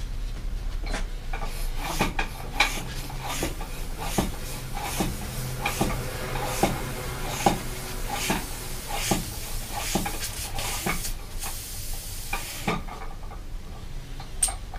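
Bicycle inner tube being pumped up by hand to find a puncture: a run of pump strokes with rushing air, about one a second. The air noise stops sharply near the end.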